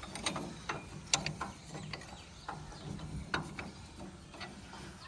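Irregular light mechanical clicks and knocks, a few a second, over a faint low steady hum.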